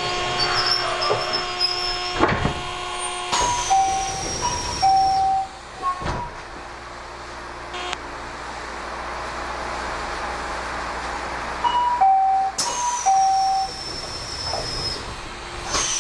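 Train door chime inside a Kobe Electric Railway car: a high-then-low two-note chime played twice in a row, and the same pattern again about eight seconds later, over the car's steady hum. Two sharp thumps fall a few seconds in.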